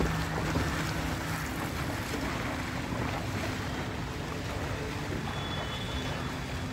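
Pool water splashing steadily as two swimmers churn through it with arm strokes and kicks.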